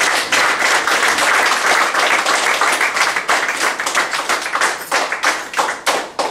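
Audience applauding: dense clapping at first, thinning to scattered single claps near the end.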